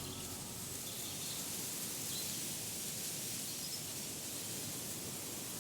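Outdoor nature ambience: a steady soft hiss with a few faint bird chirps.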